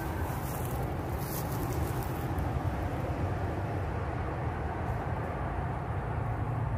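Steady low outdoor rumble, with a few faint rustles in the first couple of seconds.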